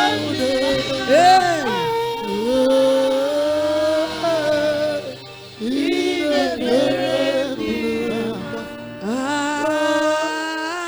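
Worship singing with music accompaniment: voices holding long, wavering notes with sweeping rises and falls, breaking off briefly twice.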